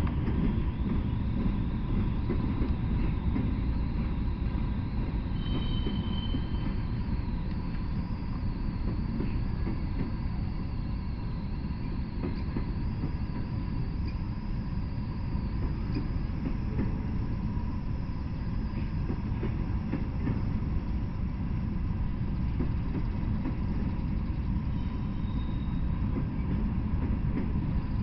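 Freight train of covered hopper cars rolling past, a steady low rumble of steel wheels on rail. A faint high-pitched wheel squeal wavers through the middle stretch.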